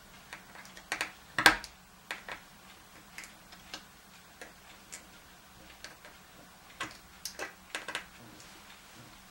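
Small screwdriver turning a screw into a wooden board to clamp a wire at a metal switch strip: a series of irregular clicks, the loudest about one and a half seconds in.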